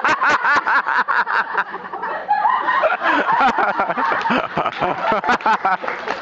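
Theatre audience laughing, many voices in quick repeated bursts.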